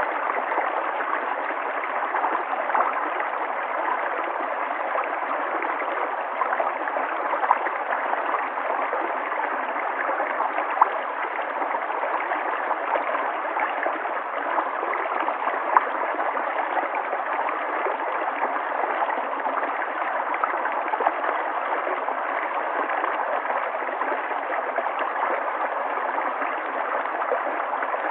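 River water flowing steadily over rocks, a continuous rush with small splashes and gurgles.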